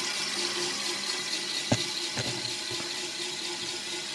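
Prusa CW1 wash station running its wash cycle: the spinning part in the steel tank swirls isopropyl alcohol into a whirlpool, a steady whir with swishing liquid. A sharp knock about 1.7 s in, and a few lighter ones after it.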